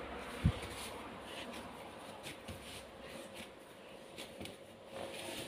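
Risen bun dough being kneaded by hand on a floured wooden board: faint soft rubbing and pressing, with one low thump about half a second in.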